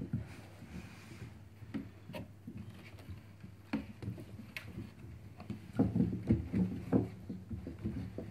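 Labrador puppies scuffling and tussling on a sheet, with scattered light knocks and scrabbling as they move about and chew toys, busiest about six to seven seconds in.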